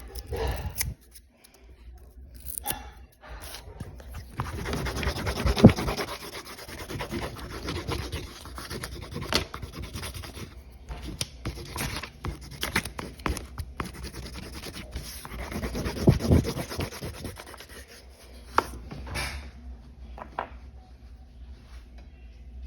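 Coloring tool rubbing and scratching in quick strokes across the surface of a sign. The strokes are sparse at first, run densely from about four seconds in, and thin out near the end.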